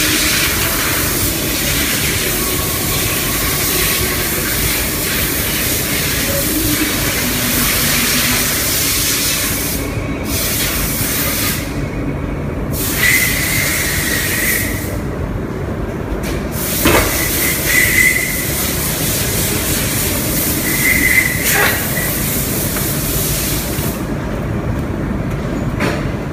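Steady machine noise and hiss of a silicone-molding workshop. The high hiss cuts out briefly several times, with a few short high squeaks and a couple of sharp clicks over it.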